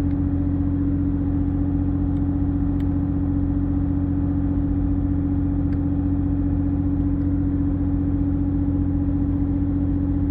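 Engine running steadily at a constant idle, a continuous hum with one strong steady tone and no change in speed.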